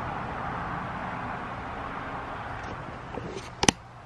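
A steady rushing background noise that eases off near the end, then a few small knocks and one loud, sharp click a little over three and a half seconds in, as the camera is handled.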